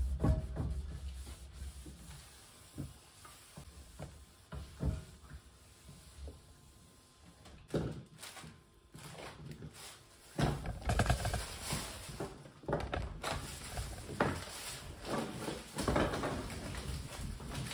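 Handling noises indoors: scattered knocks and thumps with rustling, getting busier about halfway through.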